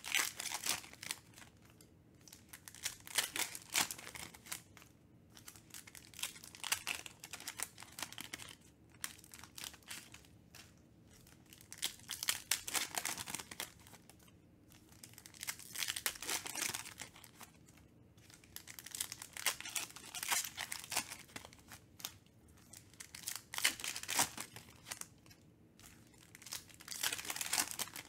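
Foil trading-card packs being torn open and crinkled by hand, in repeated short bursts of crackling a few seconds apart.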